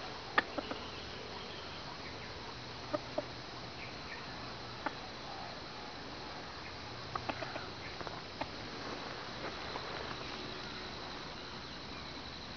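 Steady high-pitched drone of insects, with a scattered series of short sharp clicks and taps, the loudest about half a second in and a quick cluster a little past the middle.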